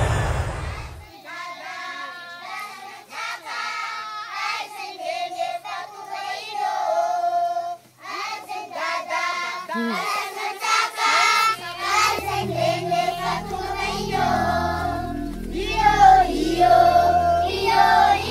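A song with a group of voices singing, joined by a steady bass and drum beat about twelve seconds in. Aircraft engine noise cuts off in the first second.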